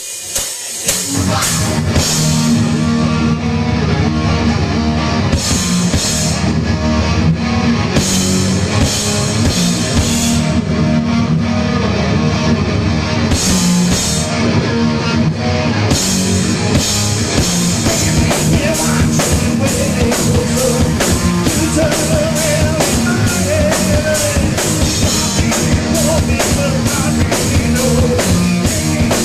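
Heavy metal band playing live and loud: pounding drum kit with cymbals, distorted electric guitar and bass guitar, recorded on a pocket camcorder.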